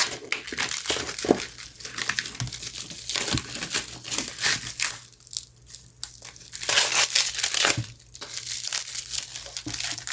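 Plastic wrapping on a photobook crinkling as it is handled, in irregular rustling spells with a short lull about halfway through.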